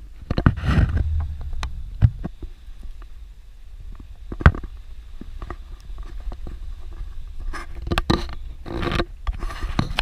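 Suzuki Jimny driving slowly on a rough dirt road, heard from inside the cabin: a steady low rumble with scattered sharp knocks and rattles as it goes over the bumps.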